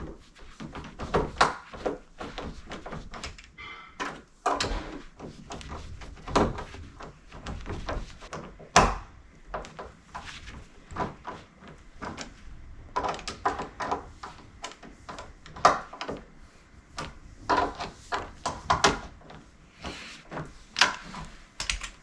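Door lever hardware being fitted to a door: irregular metallic clicks, knocks and rattles of the latch, lever and screws being handled and turned in by hand with a screwdriver.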